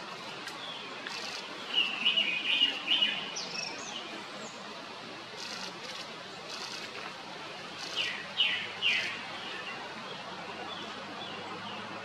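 Japanese thrush singing: two short phrases of quick whistled notes, one about two seconds in ending on a higher note, the other about eight seconds in with falling notes.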